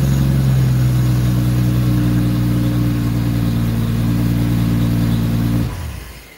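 A GM Vortec 4200 inline-six idling steadily in a 1959 Volvo PV544, then switched off near the end and dying away quickly.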